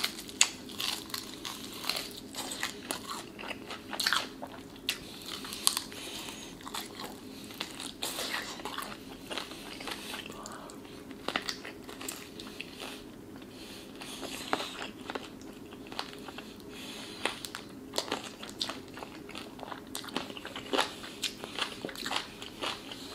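Close-up biting and chewing of a crispy Popeyes fried chicken leg, the breading crunching in many sharp, irregular crackles, over a faint steady hum.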